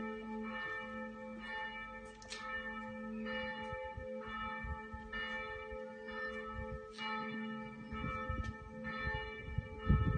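Church bells ringing: repeated strikes, roughly every two-thirds of a second, with the bell tones ringing on between them.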